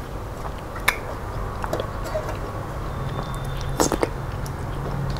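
Close-up eating-by-hand sounds: chewing and wet mouth noises as fingers wipe the last food off a stainless steel plate and are licked, with a sharp smack about a second in and two more near four seconds.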